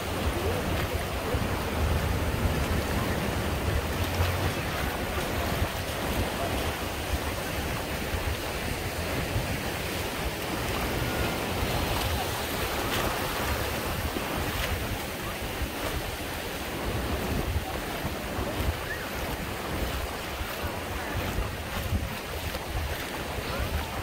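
Small waves breaking and washing up the sand at the water's edge, a steady surf wash, with wind buffeting the microphone in low gusts.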